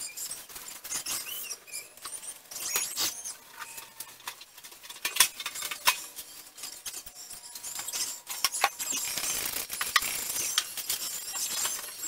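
Hand-cleaning a kitchen: a cloth wiping and squeaking over the stove's glass and steel surfaces and the counters, with scattered light clicks and clinks of things being handled.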